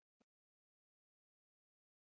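Near silence: the audio is all but muted, with only a barely audible faint blip about a quarter second in.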